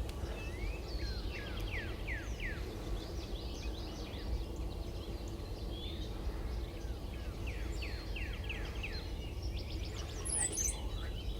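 Songbirds singing: several runs of quick, down-slurred whistled notes, one run near the start and another in the middle, over a steady low outdoor rumble.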